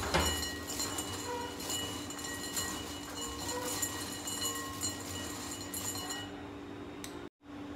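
Crisp fried rice kurkure being stirred and tossed with spice mix in a bowl: a continuous rattle of many small clicks and crunches, over a steady background hum.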